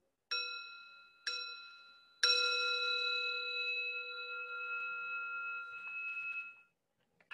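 Small metal singing bowl struck three times about a second apart, the third strike the strongest, ringing on with several steady tones for about four seconds before it stops. It is rung to signal the beginning of the practice.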